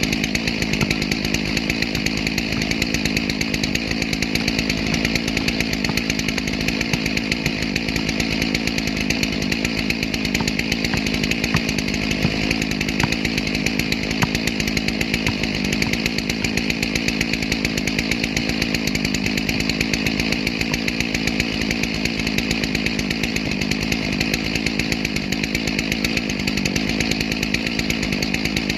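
Stihl MS 461 two-stroke chainsaw running steadily at high revs, cutting through a log.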